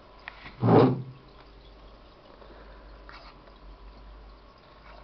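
Jebo 825 aquarium's built-in filter gurgling and dripping over a low steady hum, with one loud gurgle about a second in; this is the noise the owner treats as a problem.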